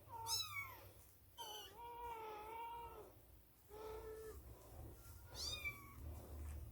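Birman kittens meowing: four thin calls, one of them long and drawn out about a second and a half in, the others short.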